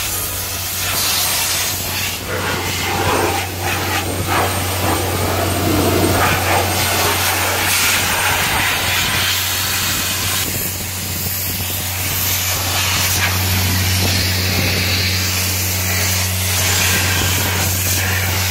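Air blower blowing dust and chaff off a combine: a loud rushing hiss that swells and eases as the air is moved around, over a steady low engine hum.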